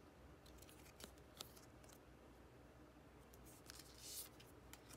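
Faint handling of a stack of glossy photocards: a couple of light clicks, then a card sliding off the top of the stack with a soft rustle about four seconds in.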